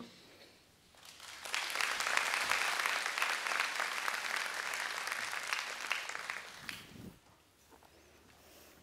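Audience applauding. It builds up about a second in and dies away about seven seconds in.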